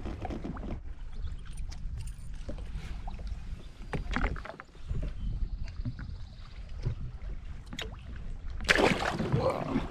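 Water lapping around a jet ski's hull under a steady low rumble, with scattered small knocks and clicks of handling, and a louder rush of splashing noise about nine seconds in.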